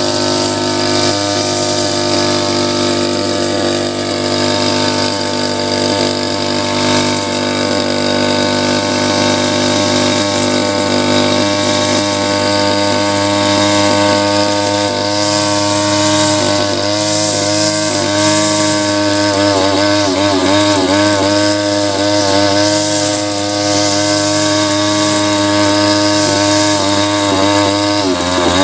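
Small engine of a backpack grass cutter running steadily, its pitch beginning to waver up and down about halfway through.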